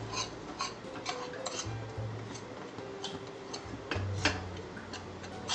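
A metal spoon scraping and clicking against the sides and bottom of a small metal pan as dry spice powder is stirred while it roasts, in a quick irregular run of ticks.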